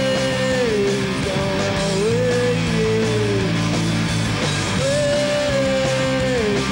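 Punk rock band playing live: distorted electric guitars, bass and drums under a woman's raw sung vocal. She sings three long held lines, each sliding down in pitch at its end, with a break of about a second and a half in the middle.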